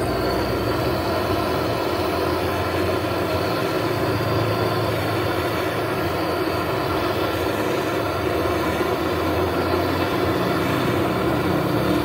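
Handheld gas torch on a yellow fuel cylinder burning with a steady hiss of flame while welding shut a puncture in a refrigerator's freezer evaporator.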